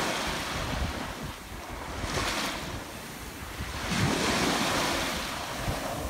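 Shallow surf washing up over wet sand at the water's edge, surging and fading several times and loudest about two-thirds of the way in, with wind buffeting the microphone.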